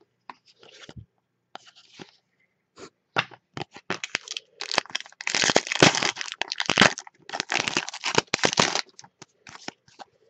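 A sealed pack of Upper Deck Trilogy hockey cards having its wrapper torn open by hand. A few light handling clicks come first, then about three seconds in a dense run of crinkling and ripping starts, loudest in the middle, thinning out as the cards are pulled free.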